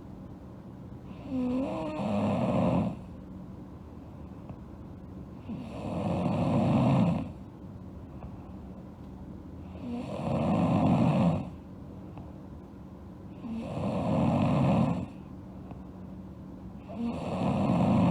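Sleeping girl snoring: five snores, roughly one every four seconds, each lasting about a second and a half.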